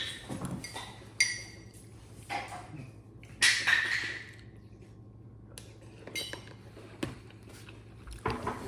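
Metal utensil clinking and scraping against a bowl during eating: a few separate clinks, one ringing briefly, and a longer scrape near the middle.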